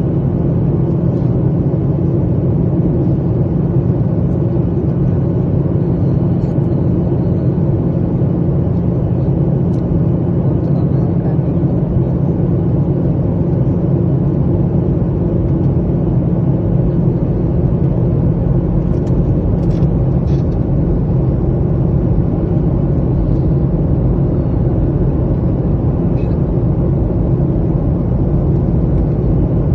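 Airliner cabin noise at a window seat: a steady jet engine and airflow rumble with a low hum, plus a few faint clicks.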